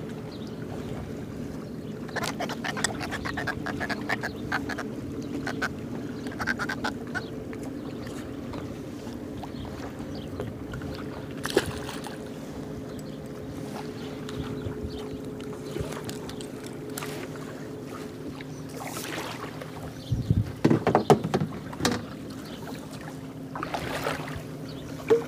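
Boat motor running steadily, a low hum of several even tones, with scattered clicks and a few louder knocks about three-quarters of the way through.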